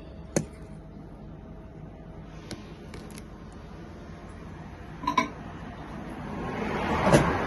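A dish clinking sharply, then several lighter knocks and clicks as a bowl of rice is set back into a microwave, with a louder knock near the end.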